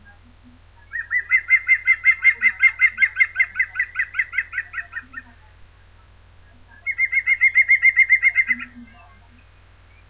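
Green woodpecker giving its laughing 'yaffle' call: a long fast run of repeated notes starting about a second in, then a shorter run a couple of seconds later.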